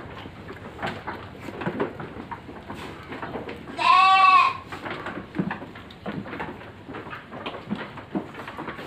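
A goat bleats once, loudly, about four seconds in. Around it, goats feeding at a trough make a steady patter of soft chewing and rustling noises.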